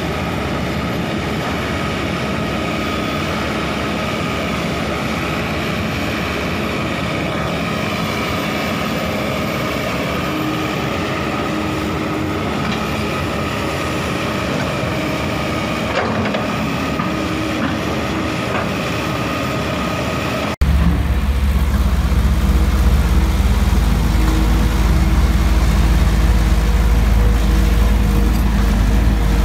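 Diesel engine and hydraulics of a Kobelco crawler excavator running steadily while it works in deep mud. After a sudden cut about two-thirds of the way through, a louder, deeper diesel engine of a Sumitomo SH210 excavator runs steadily.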